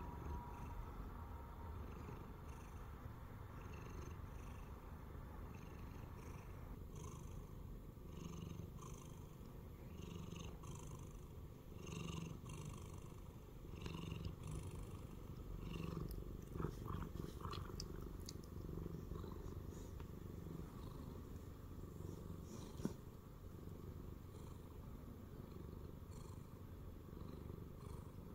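Siamese cat purring steadily and close up, the purr swelling in a regular rhythm about once a second. A sharp tick stands out once, late on.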